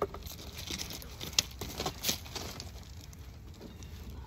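Scattered clicks, knocks and crackles from handling the wooden parts of a beehive as a heavy hive box is lifted and moved. The sharpest knock comes about a second and a half in.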